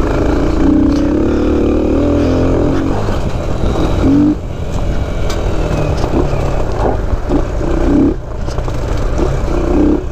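Kawasaki KLX trail bike's single-cylinder four-stroke engine running at low speed, its note climbing over the first few seconds, then a few short throttle blips every second or two.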